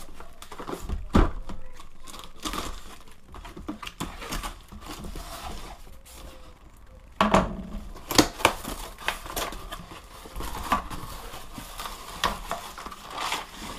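Cardboard shipping box being opened by hand: tape cut with a folding knife, cardboard scraping, tearing and crinkling as the flaps are pulled open. A few sharp clicks and knocks come about seven to nine seconds in.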